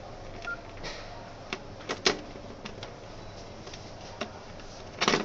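Scattered clicks and knocks of machine parts being handled and fitted together while a monitor is mounted on its base. The loudest single knock comes about two seconds in, and a quick cluster of knocks comes near the end.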